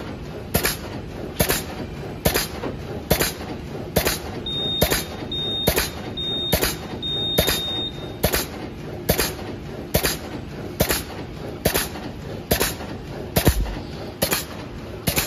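Stand-up pouch bag-making machine running, its sealing and cutting stations cycling with a sharp clack a little more than once a second over a steady hum. Four short high beeps sound a few seconds in.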